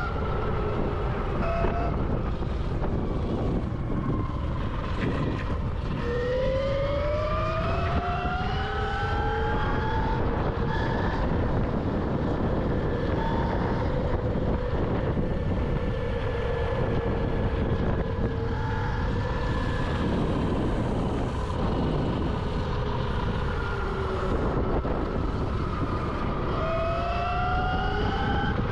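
Electric dirt bike's motor whining under throttle, the pitch rising as it speeds up at about six seconds in and again near the end, over a steady rushing noise.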